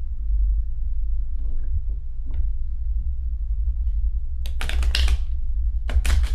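A steady low hum, then, about four and a half seconds in, a rapid run of crackling clicks from a deck of reading cards being shuffled.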